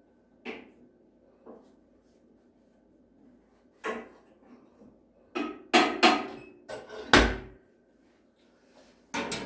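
Knocks and clatter of wood and metal at a wood-burning stove: a couple of light clicks, then a run of loud bangs and scrapes about four to seven seconds in, ending in a heavy thud.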